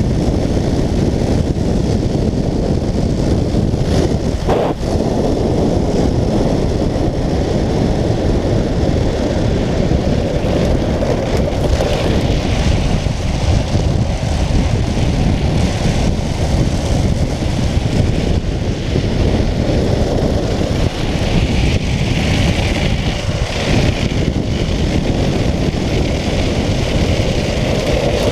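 Wind buffeting the microphone and tyres rolling on asphalt as a speed trike runs fast downhill: a loud, steady rushing, with a brief knock about four seconds in.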